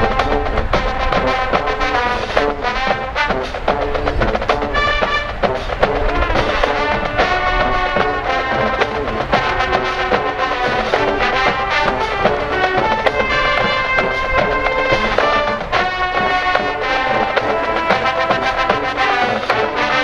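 Marching band playing: brass sounding stacked, held notes over steady drum strokes.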